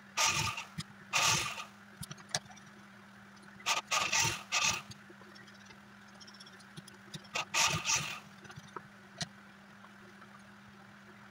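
Cloth rustling and sliding in several short bursts as fabric is handled and smoothed on a sewing machine table, with a few light clicks and a steady low hum underneath.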